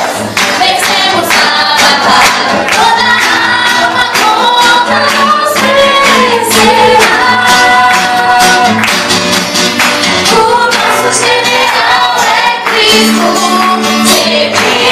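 A woman sings a gospel song into a handheld microphone, amplified through the church PA, over musical accompaniment with a steady beat.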